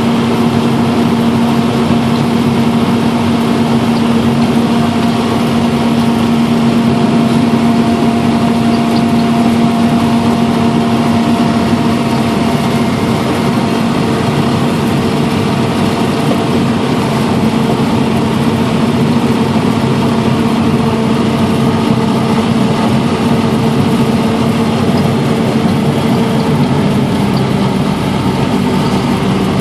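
Harvester running steadily: a loud, even engine and machinery drone with a few steady whining tones held over it.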